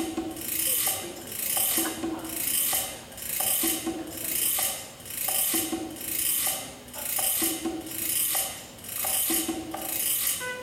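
Electronic percussion from an iPad instrument app: a rasping, shaker-like scrape repeating about once a second over a short, repeating two-note figure, the opening groove of a band playing on iPads and iPhones.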